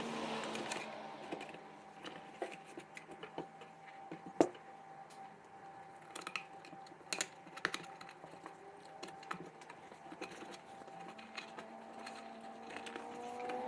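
Scattered small clicks and taps of a plastic car instrument cluster being handled and wiped, with one sharper click about four seconds in. A steady hum runs underneath and rises in pitch near the end.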